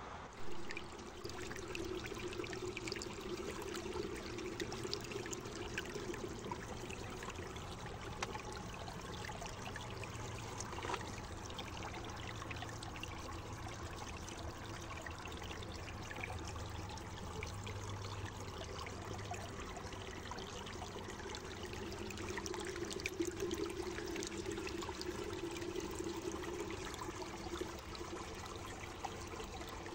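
Water trickling and flowing over stones, a steady splashing rush that swells and eases, with a brief thump right at the start.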